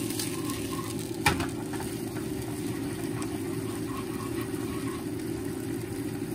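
Seasoning sauce with coconut water simmering and sizzling in a frying pan as a spatula stirs it, with one sharp knock of the spatula against the pan about a second in. Under it runs a steady low machine hum, such as a kitchen fan.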